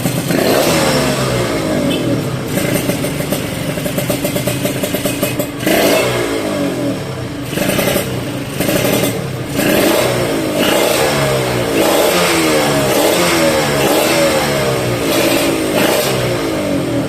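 Two-stroke single-cylinder engine of a race-prepared Kawasaki Ninja RR, with a WRX GP racing exhaust and a PJ38 carburettor, being revved over and over. The revs rise sharply and drop back repeatedly, with a few brief lifts off the throttle.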